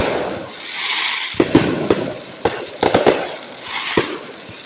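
Fireworks going off: a series of sharp bangs, several close together about three seconds in, with a hiss between them.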